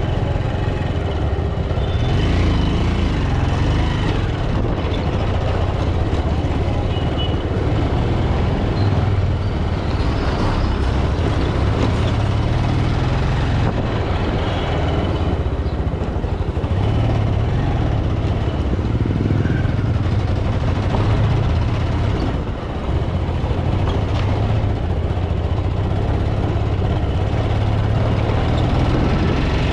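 Onboard sound of a Bajaj Pulsar 200 motorcycle being ridden: its single-cylinder four-stroke engine runs steadily, its low note shifting with the throttle, over road and wind noise and surrounding traffic.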